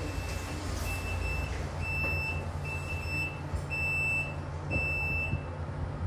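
Fujitec lift's door-closing warning beeper sounding a high steady tone about once a second, about six times, while the doors shut; a low steady hum runs underneath.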